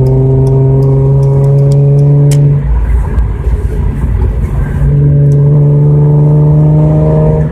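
Hyundai Genesis Coupe engine accelerating hard, its pitch climbing slowly. About two and a half seconds in it drops away for a couple of seconds, then pulls again.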